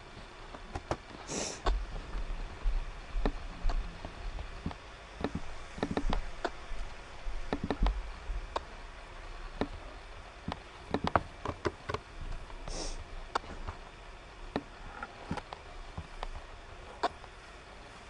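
Irregular clicks and light knocks, with a few low thumps and two short hissing sounds, one near the start and one about two-thirds of the way through.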